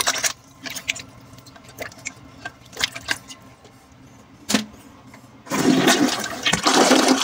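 Water sloshing briefly in a toilet bowl, then a few small drips and splashes. About five and a half seconds in the toilet flushes, water rushing and swirling down the bowl.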